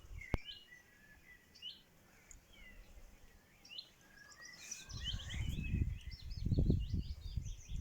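Small birds chirping, with a low rumbling noise that sets in about five seconds in and is the loudest sound.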